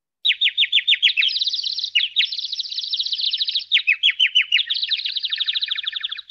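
Birds chirping and twittering: a fast, unbroken run of high chirps, each sliding down in pitch, about eight a second, starting a moment in.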